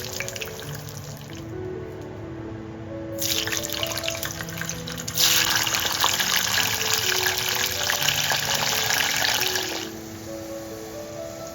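Kitchen tap running into a sink, starting about three seconds in, opening to a strong flow about two seconds later and shutting off near the end, over soft background music.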